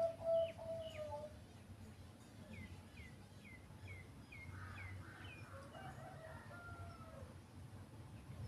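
A zebra dove's coo, whose last drawn-out, slightly falling note fades out about a second in. Then other birds call faintly: a quick run of seven short, high, falling chirps, followed by softer, longer calls.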